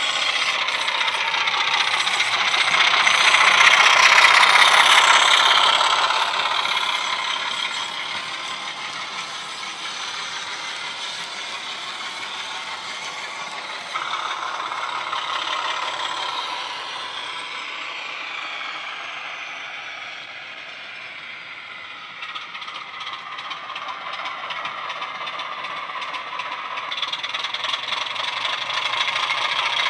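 Model Class 25 diesel locomotive's DCC sound decoder playing a diesel engine sound through two EM1 speaker drivers, the engine note slowly shifting in pitch, with the model's wheels and mechanism rattling on the track. Loudest a few seconds in as the locomotive passes close, dropping away, then building again near the end as it comes back toward the microphone.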